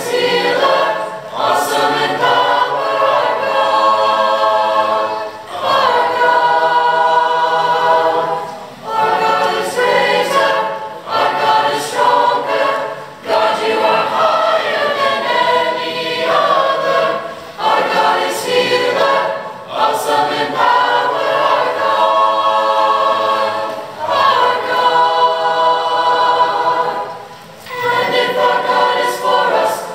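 Mixed youth choir of boys' and girls' voices singing a hymn, in sustained phrases a few seconds long with brief breaks for breath between them.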